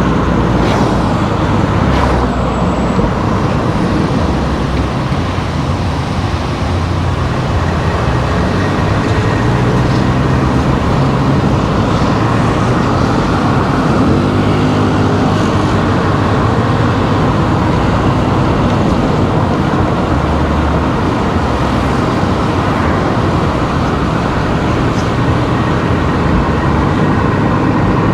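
A car driving, with steady engine and tyre road noise. A short rising engine note rises out of it about halfway through.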